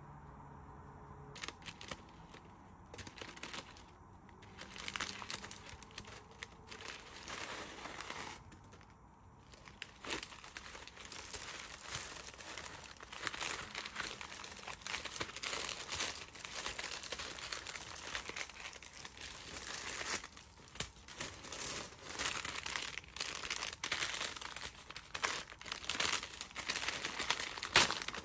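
Brown kraft honeycomb wrapping paper and white tissue paper crinkling and rustling as a parcel is unwrapped by hand: scattered crackles at first, near-continuous handling from about ten seconds in.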